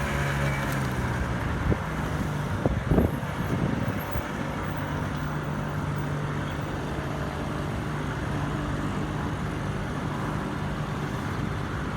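Several small moped scooter engines running at idle together with a steady low hum, with a brief louder burst of engine noise about three seconds in.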